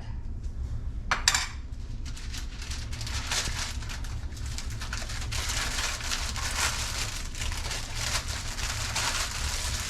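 Wax paper crinkling and rustling as food portions are wrapped by hand, a continuous crackle with a brief louder rustle about a second in.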